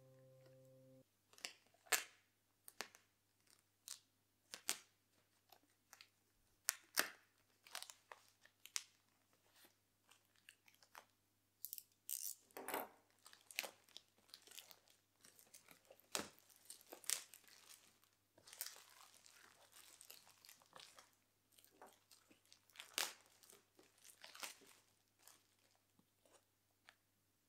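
Clear plastic wrap being pulled and torn off a package by hand: irregular crinkling and sharp tearing crackles, with short pauses between them. Soft background music cuts off about a second in.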